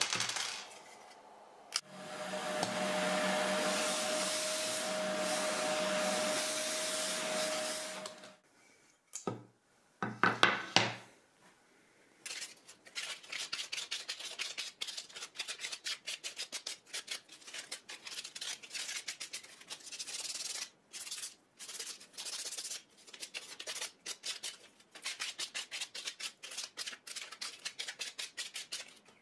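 A small milled wooden bowl being worked over by hand, with quick rubbing strokes, several a second, through the second half. Before that comes a steady machine-like noise with a held tone lasting about six seconds, followed by a few knocks.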